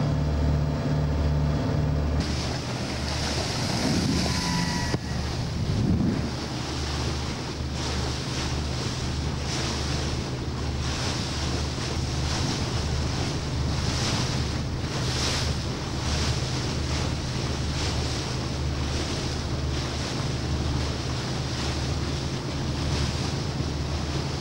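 Motor cruiser running across open water: a steady low engine drone under the rush of water along the hull and wind buffeting the microphone.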